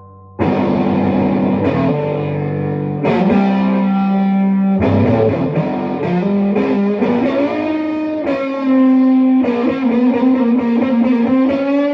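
Epiphone electric guitar with Lollar pickups, tuned to C sharp, played clean through a Fender Deluxe Reverb tube amp: ringing chords and single notes starting about half a second in, with wavering, bent notes in the second half.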